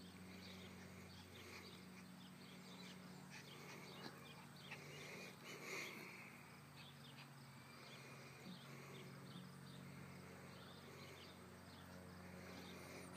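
Near silence: faint outdoor ambience with a low steady hum and scattered faint high chirps.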